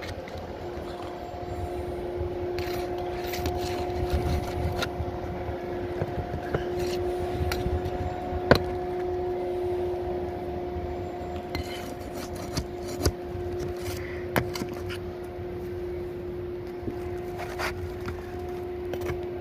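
Scattered clicks and knocks of hand tools prying an asphalt shingle loose on a roof, with one louder knock about halfway through, over a steady humming drone.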